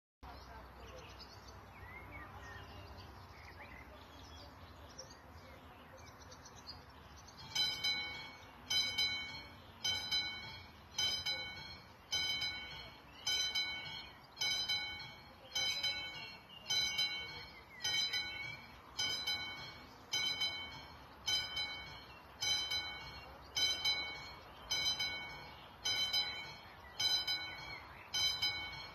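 Classic mechanical warning bell of a Czech level crossing striking about once a second, each stroke ringing and fading: the crossing is warning of an approaching train. The bell starts about seven seconds in; before it there is faint birdsong.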